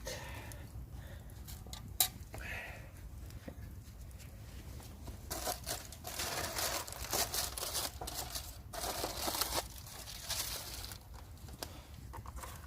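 Crinkling and rustling of something being handled, with a sharp knock about two seconds in; the crinkling is densest between about five and eleven seconds in.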